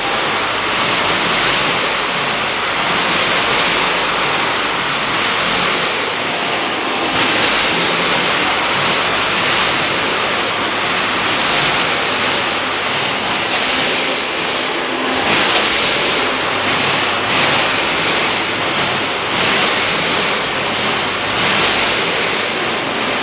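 Steady, even rushing noise of an automatic nut weighing and packing line and its conveyor belts running, with no distinct rhythm or knocks.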